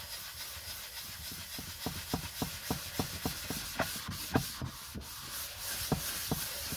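A hand buffing wax into the wooden lid of a marquetry box, a steady rubbing of cloth and glove on the finished wood. Through the middle the strokes come with soft taps about three a second, then thin out near the end.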